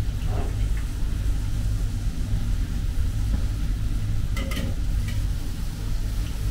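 Pizza dough deep-frying in a pot of hot oil, sizzling, with a metal skimmer stirring it and clinking a few times about four and a half seconds in, over a steady low rumble.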